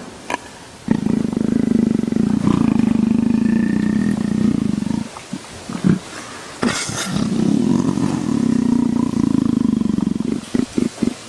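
Jaguar snoring: two long, low, pulsing rumbles of several seconds each, with a short breathy burst between them, then a run of quick short grunting pulses near the end.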